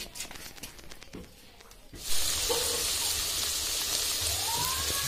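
Curry sizzling as it fries in oil in a wok: a steady hiss that starts suddenly about two seconds in, after a couple of seconds of only faint clicks.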